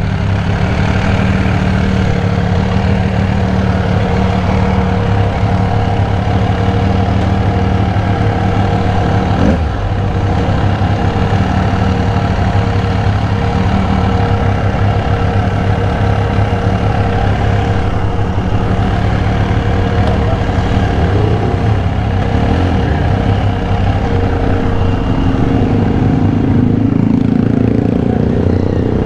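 Benelli Cafe Racer 1130's three-cylinder engine idling steadily, getting slightly louder near the end.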